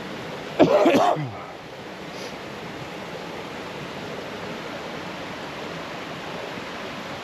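Steady rushing of river water, with a brief loud voice about a second in.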